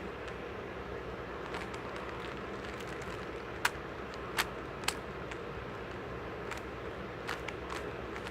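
Rubik's cube being turned during a timed solve: scattered sharp plastic clicks, three louder ones a little past halfway, over a steady background hum.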